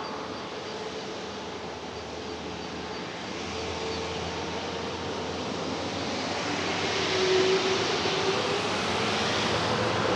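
Airbus A350-900's Rolls-Royce Trent XWB jet engines at takeoff power, a steady roar with a faint hum in it, growing louder from about three seconds in.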